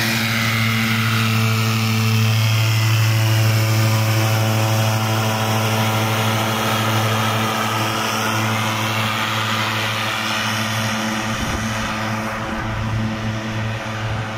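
Airboat engine and propeller running at speed, its whine falling in pitch and fading as the boat speeds away. Under it runs a steady low engine hum.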